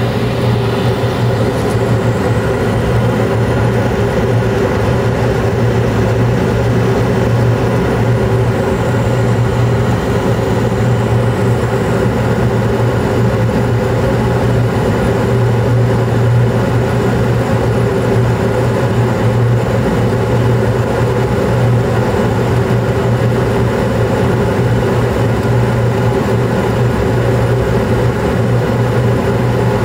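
Carrier Infinity 96 (58MVB) two-stage gas furnace running steadily in second stage, burners lit and blower on: a loud, even hum.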